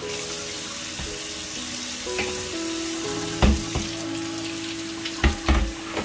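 Kitchen tap running and splashing onto a plastic fridge drawer frame and glass shelf in a stainless steel sink. Several short low thumps in the second half as the frame is handled.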